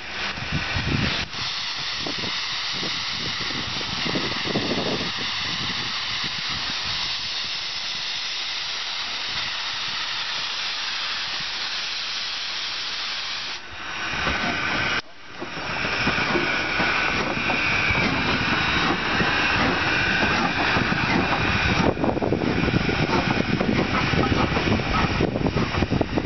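Steam locomotive No. 90, a 2-10-0, hissing steam loudly as it works its passenger train. After a short break about fifteen seconds in, the low rumble and clatter of its running gear and wheels grows as it passes close by.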